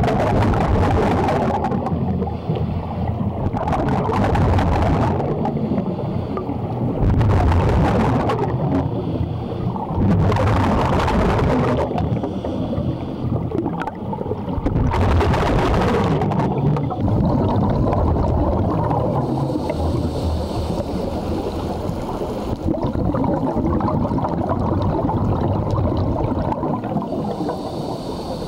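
Scuba regulator breathing heard underwater: exhaled bubbles gurgle out in bursts about every three seconds for the first half, then grow fainter, over a steady low underwater rumble.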